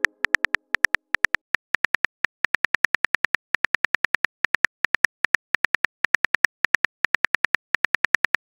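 Phone keyboard key-tap clicks typing out a message: short sharp ticks, each with a faint ring, about seven a second, with a few brief pauses.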